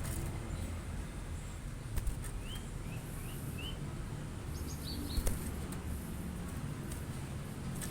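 Glatik batu (cinereous tit) calling: four quick rising chirps a couple of seconds in, then a few higher, thinner notes about a second later. Steady low background noise runs underneath, with two sharp clicks.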